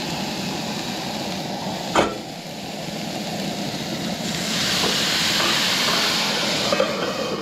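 Asparagus sizzling in a hot cast-iron skillet on a camp stove, a steady hiss, with one sharp metallic knock about two seconds in. From about four seconds in the sizzle swells into a louder, brighter hiss as soy sauce is poured into the hot pan and flashes to steam.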